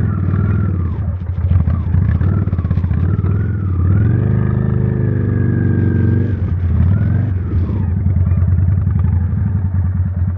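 Motorcycle engine running steadily with an even pulsing beat. Its note rises about four seconds in, holds, and falls back near seven seconds.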